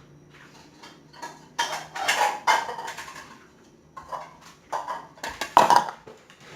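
Kitchen utensils and dishes clattering and scraping in two clusters of short bursts, the first about two seconds in and the second about four to six seconds in.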